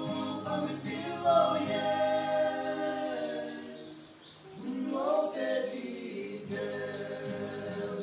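Small group of young men singing a gospel song together, holding long notes; the voices stop for a breath about halfway through, then come back in.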